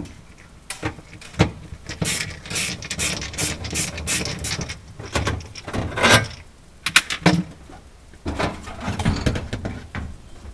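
Hand screwdriver working the screws out of the vented evaporator cover inside a Sub-Zero BI-36 refrigerator, then the cover panel rattling and scraping as it is handled free. The sound is a busy, uneven run of clicks, knocks and scrapes.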